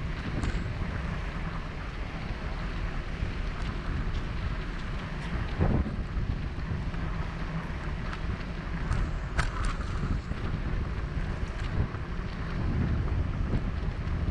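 Wind buffeting the microphone of a moving bicycle, a steady low rumbling noise, with a few sharp clicks and knocks.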